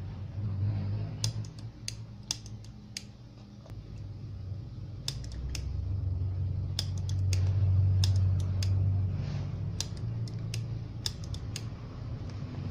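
Irregular sharp clicks and snaps, about twenty of them, over a steady low hum that swells from about six to nine seconds in.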